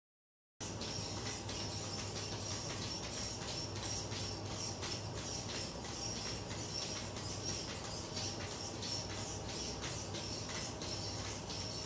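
Small one-actuator bipedal walking robot stepping on a hard floor: a steady high motor whine with repeated short ticks and taps from its stepping, starting suddenly about half a second in.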